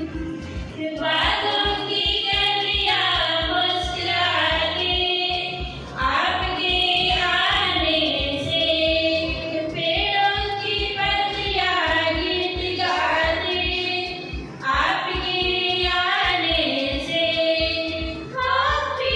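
A small group of women singing a song together into handheld microphones, in long held phrases with short breaks between them.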